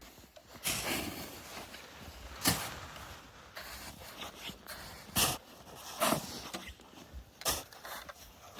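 Snow shovel digging into deep snow: a run of uneven crunching scrapes, about half a dozen strokes spaced a second or more apart.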